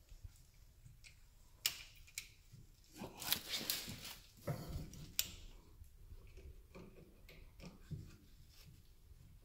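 Scattered light metallic clicks and scraping from a brake caliper piston wind-back tool being turned and handled against a rear brake caliper, as the piston is wound back into its bore. The densest rattling comes about three to four seconds in.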